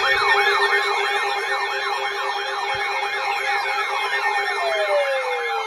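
Weather alert radio alarms sounding together: a fast siren-like warble sweeping up and down about four times a second over steady tones, with a second siren tone sliding slowly down in pitch from a little past halfway. The tones signal an incoming weather alert.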